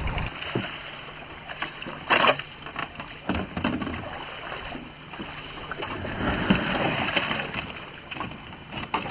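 Shallow sea water washing and swirling over a pebble beach, with scattered knocks and clatters as sea kayaks are hauled up over the stones; the loudest knock comes about two seconds in.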